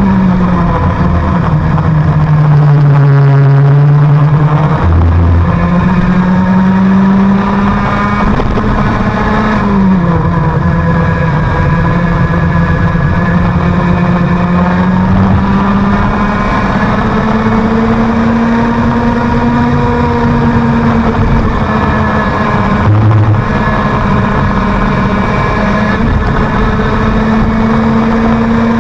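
IAME X30 two-stroke kart engine at racing speed, its pitch dropping sharply when the throttle is lifted for corners (near the start and about ten seconds in) and climbing steadily again as the kart accelerates out of them.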